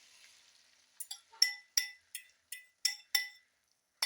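A metal utensil tapping against the rim of a bowl about eight times in quick, ringing clinks, knocking the last of the beaten eggs out into the pan. A faint hiss fades away in the first second.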